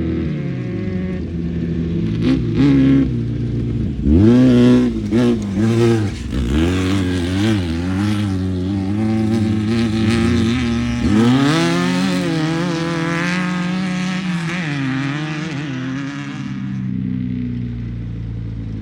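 Off-road race vehicle's engine revving hard, its pitch rising and falling with the throttle. There are two loud accelerations, about four and eleven seconds in, before it fades.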